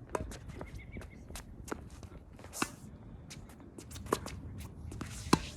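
Tennis balls being struck and bouncing on court, a scattering of sharp pocks and knocks at irregular intervals, the loudest near the end. Underneath runs a low rumble of wind on the microphone.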